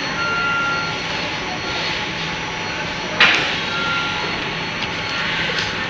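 Plastic back cover of a tablet being pressed and clipped onto its frame by hand, with a few small clicks and one sharp snap about three seconds in, over a steady hiss of factory background noise.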